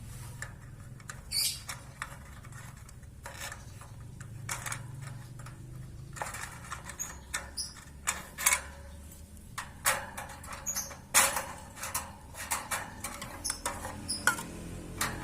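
Irregular clicks, taps and small rattles of a birdcage and its drinking cup being handled while the water is changed, with a few brief high squeaks among them.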